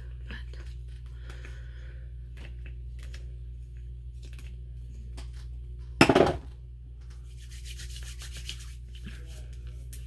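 Soft rubbing and small clicks of hands working SPF 40 sunscreen primer onto the face and handling its plastic bottle, over a steady low hum. One loud, brief thump comes about six seconds in.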